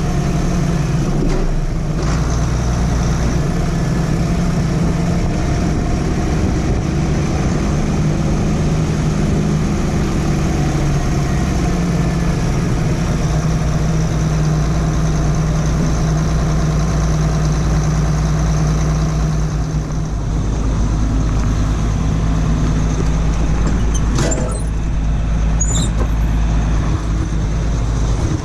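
A large engine running steadily at constant speed. A few brief high-pitched clicks or squeaks come through it near the end.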